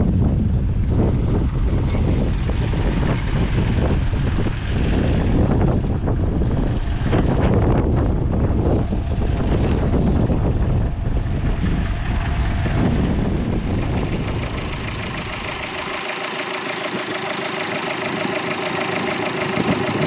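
Grey Ferguson tractor engine running steadily while pulling a plough, heavily buffeted by wind on the microphone for the first part. About fourteen seconds in the wind rumble drops away and the engine's even hum comes through clearly.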